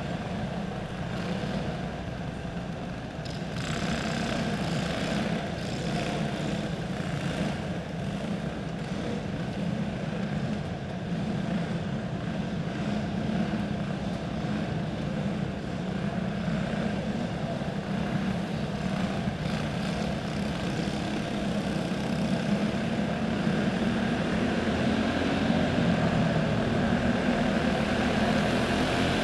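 A pack of dirt karts with single-cylinder four-stroke clone engines running laps together, a continuous buzzing engine drone that grows a little louder toward the end.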